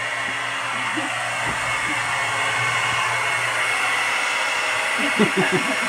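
Handheld hair dryer running steadily with a constant high whine, blowing hot air to thaw an iced-up refrigerator freezer and its evaporator.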